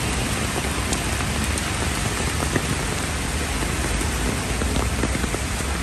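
Heavy rain pouring onto a wet road and pavement: a steady, dense hiss with scattered sharper drop ticks.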